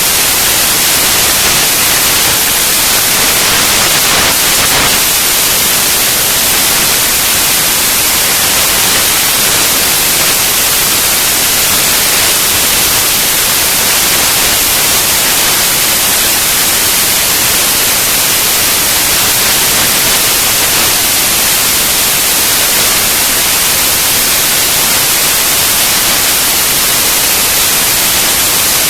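Loud, steady hiss like static or white noise, brightest in the high end, with no clicks, crackles or changes.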